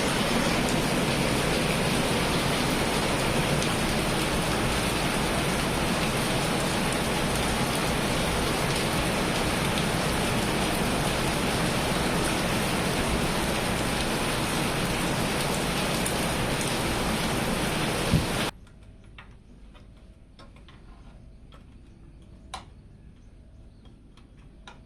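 Steady rushing noise, like heavy rain, that cuts off abruptly about eighteen seconds in, leaving a quiet background with a few faint clicks.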